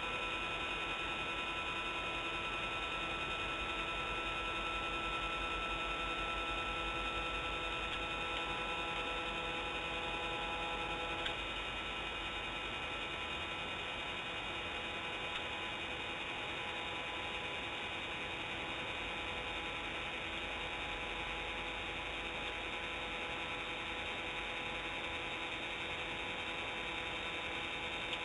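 Steady electrical hum and whine of several fixed tones over a hiss, from a remote-controlled nest camera as it pans. There is a faint click about eleven seconds in.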